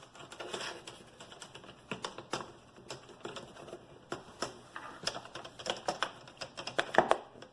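Irregular clicks, taps and light rattles of plastic laptop parts being handled and fitted together during reassembly.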